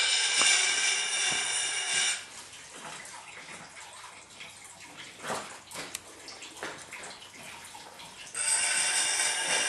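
Steel tomahawk head held against a large spinning grindstone: a steady grind that stops about two seconds in as the blade is lifted off, leaving a few faint scrapes, and starts again about a second before the end.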